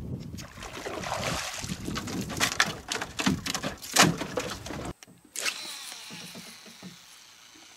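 A freshly landed fish thrashing, with loud, irregular knocks and thuds against a wooden boat hull, for about five seconds. After an abrupt cut comes a fishing cast: a swish of the rod, then the baitcasting reel's spool whirring and dying away.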